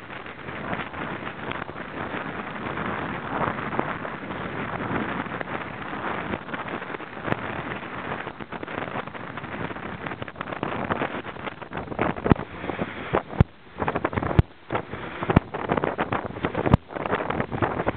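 Strong wind rushing over the microphone together with the hiss of water streaming past the hull of a sailboat beating upwind in a gale. From about twelve seconds in the noise turns choppy, with sharp knocks and buffets on the microphone.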